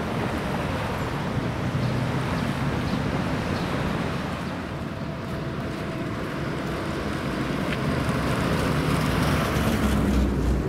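Road traffic on a wet road with wind rumbling on the microphone; a truck's engine grows louder near the end as it approaches.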